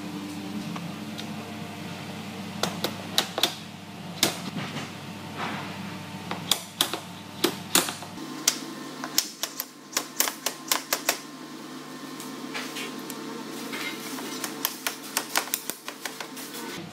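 A small hammer tapping the aluminium frame of an MDF wardrobe door, in irregular runs of sharp light knocks.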